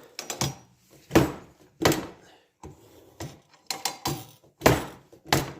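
Hand-operated sawmill band-blade tooth setter being worked by its levers: a series of about eight sharp clacks and knocks, irregularly spaced, as the blade is pushed along and teeth are bent to their set angle.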